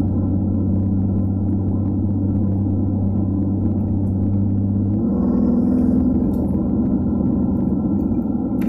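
In-cabin drone of a BMW M2 Competition's twin-turbo inline-six, with tyre and road noise, while cruising: a steady low hum. About five seconds in, the lowest note drops away and a slightly higher one takes over.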